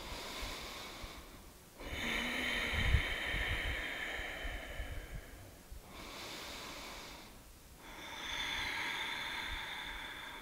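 A woman's slow, deep breaths, three in a row, the first lasting about four seconds.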